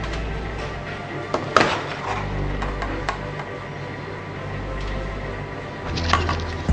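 A few sharp clinks and knocks of dishes and serving utensils as food is plated, over quiet background music.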